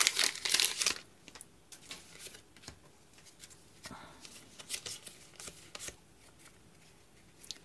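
A torn foil booster-pack wrapper crinkling for about the first second, then soft swishes and light clicks as Pokémon trading cards are slid one behind another while being looked through.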